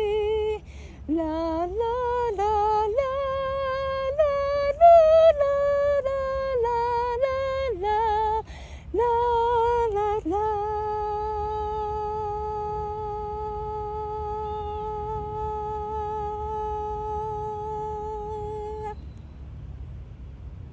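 A woman's voice singing a wordless melody, with little accompaniment. It ends on one long held note that stops about nineteen seconds in.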